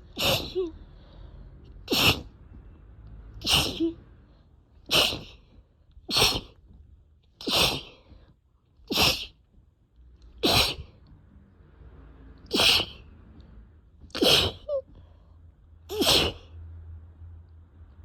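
A person sneezing over and over in a rapid, wet, uncontrollable fit: about a dozen sneezes, one every second and a half or so.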